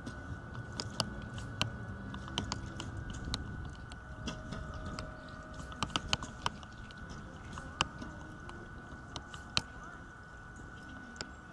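Outdoor archery-range ambience: wind rumbling on the microphone, with sharp clicks and knocks at irregular intervals and a faint steady high tone behind them.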